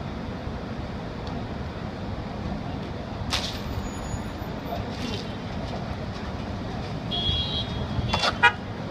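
Steady city road-traffic noise, with a brief hiss about three seconds in, short high squeaks around seven seconds, and a quick run of sharp clicks near the end, the loudest sound.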